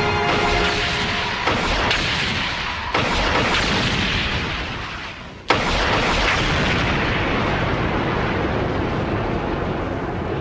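Edited explosion sound effects. A blast at the start is followed by fresh hits about one and a half and three seconds in. The rumble fades, then a sharp blast about five and a half seconds in gives way to steady heavy rumbling.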